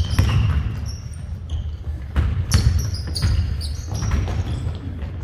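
Basketball bouncing on an indoor court, with sneakers squeaking on the floor as players move.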